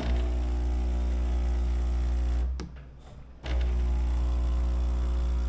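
Ultima Cosa Presto Bollente espresso machine's pump buzzing loudly as it pulls a double shot. It cuts out for about a second and then starts again.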